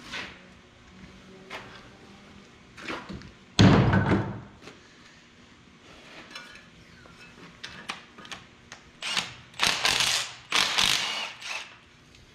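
Tools and metal parts knocking on a 5.9 12-valve Cummins engine: a heavy metal clunk about three and a half seconds in, then several short bursts from a cordless power tool near the end, as bolts come off the front of the engine.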